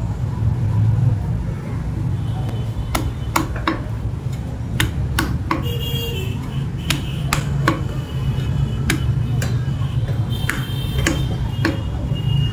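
Heavy butcher's cleaver chopping a rack of mutton ribs into chops on a wooden chopping block: a string of sharp, irregular chops, about one or two a second, starting about three seconds in, over a steady low hum.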